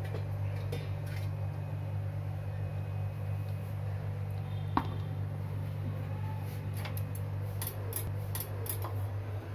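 Stainless-steel idli stand and steamer pot knocking and clinking as they are handled with a cloth, with one sharp ringing clink about five seconds in and lighter taps near the end. A steady low hum runs underneath.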